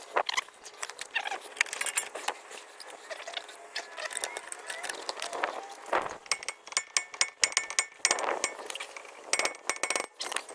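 Metal tools and brake parts clinking and clattering in many quick, irregular clicks and knocks while the front brake caliper is worked on for a pad change.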